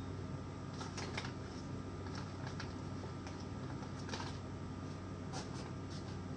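Scattered light clicks and taps of hand tools and small parts being picked up and handled on a workbench, over a steady low hum.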